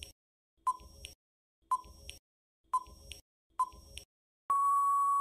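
Quiz countdown timer sound effect: four short electronic beeps about a second apart, then a longer steady beep near the end signalling that time is up.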